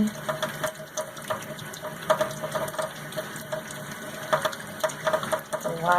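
Tap water running while a wet makeup sponge is rubbed with bar soap and squeezed, with many short wet clicks from the handling.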